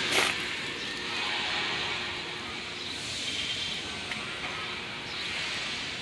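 Steady outdoor background hiss, with one short sharp noise right at the start.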